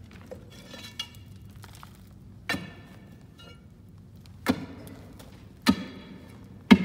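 A pick striking the rock-salt wall of a mine, chipping pieces off: four sharp, ringing strikes a second or two apart, after a fainter knock about a second in.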